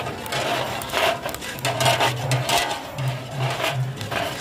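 Popcorn and hard kernels rattling and scraping against a large metal popping pot as a stirrer sweeps them round, with many sharp clicks and a low hum that comes and goes in short spells.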